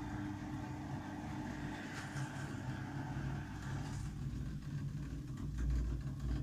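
Samsung Eco Bubble washing machine spinning its drum on the Daily Wash programme: a steady motor hum with a low rumble that swells about five seconds in.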